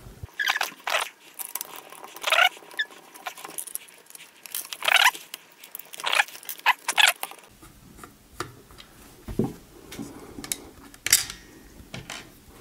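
A screwdriver backing small screws out of a plastic Roomba wheel module: a series of short squeaks and scrapes from the screws turning in the plastic housing. There is a light knock about three quarters of the way through as the module is handled.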